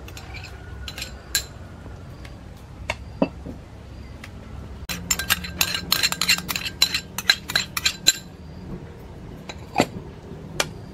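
A metal spoon clinking and scraping against a small ceramic bowl while sauce is spooned out of it. A few scattered clinks at first, then a quick run of clinks for about three seconds in the middle, and a couple more near the end.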